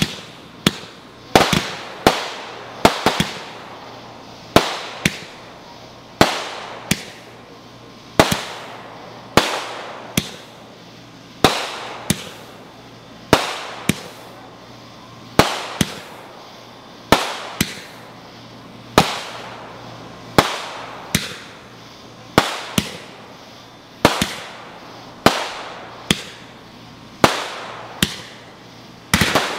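Ground-launched aerial fireworks firing a steady run of shots, a sharp bang about every second, each followed by a short fading tail.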